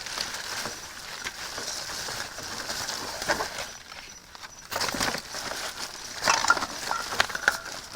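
Plastic bags and packaging rustling and crinkling as discarded items are rummaged through in a dumpster, with sharper crackles and knocks about five seconds in and again near the end.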